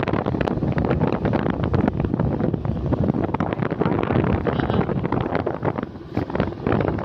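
Wind buffeting the microphone of a camera riding on a moving motorcycle, a loud, rough rushing that eases briefly about six seconds in.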